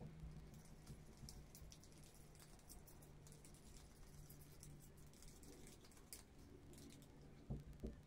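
Near silence: scattered faint light clicks and taps over a faint steady low hum, with two louder knocks close together near the end.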